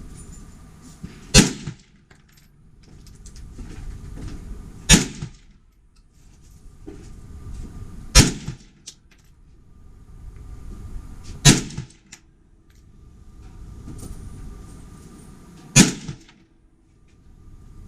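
Five rifle shots fired at a steady pace a few seconds apart, a group fired while zeroing a rifle's night sight. A low rushing noise swells and fades between the shots.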